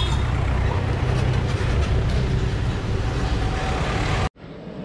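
Busy street traffic noise, a dense steady rumble of vehicles. It cuts off abruptly near the end and gives way to quieter street noise.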